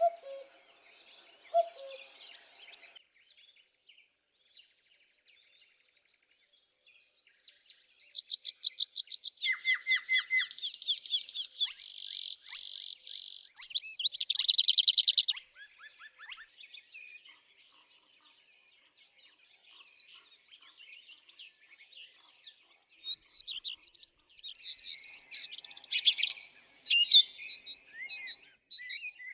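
Songbirds singing: a couple of low notes at the start, then a quiet gap, then loud rapid trills and buzzy high phrases from about eight to sixteen seconds in, and a busy run of chirps and calls near the end.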